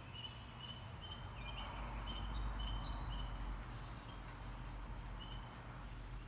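Outdoor ambience: a bird chirping over and over, short high chirps about two a second, over a low rumble that swells about two seconds in.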